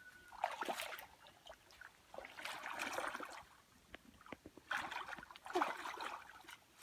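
Legs wading through shallow muddy water: sloshing and splashing in a few separate bursts, with small drips and trickles between them.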